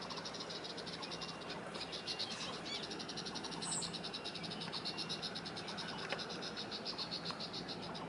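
High-pitched trill of fast, even pulses from a small calling animal near the microphone, going on with only brief breaks, over a faint low steady hum.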